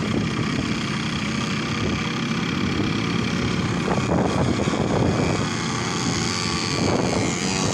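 Quad bike (ATV) engines running hard as the machines climb a steep, stony hill.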